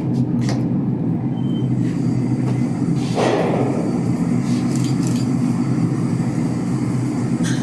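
Steady low mechanical drone of indoor shooting-range machinery, with a few sharp knocks, the strongest about three seconds in.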